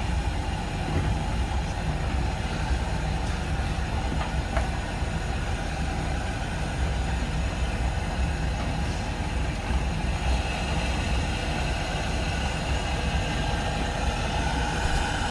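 Several domestic washing machines running together in a wash cycle: a steady low rumble with dense mechanical noise.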